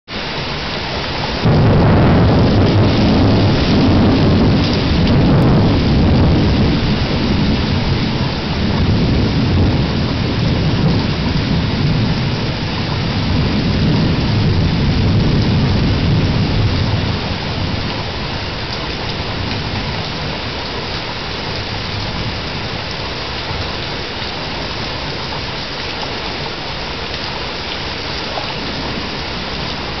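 Thunder breaks suddenly about a second and a half in and rolls in rumbling waves for some fifteen seconds, then dies away, over steady heavy rain, heard through a porch security camera's microphone.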